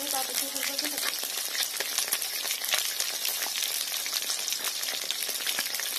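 Bat fish steaks shallow-frying in hot oil in a pan: a steady sizzle with dense crackling spatter.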